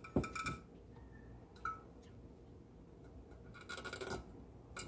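Small metallic clicks and knocks from handling an aluminum oil catch can and its parts, with a short rattle a little before the end.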